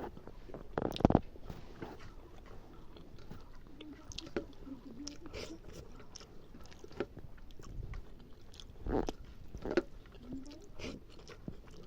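A person chewing and biting a mouthful of mutton curry, with wet mouth clicks and smacks, and a louder bite or crunch about a second in and again near nine seconds.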